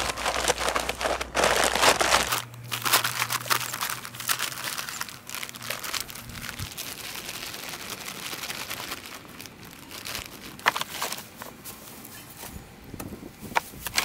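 Crinkling and rustling of a cement sack being handled and emptied, louder in the first couple of seconds, then scattered gritty crackles and scrapes as dry cement is worked in by hand around the base of a metal fence post.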